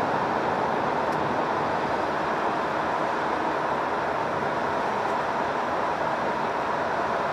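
Steady road and engine noise of a Hino Profia truck driving through an undersea road tunnel, with no changes or separate events.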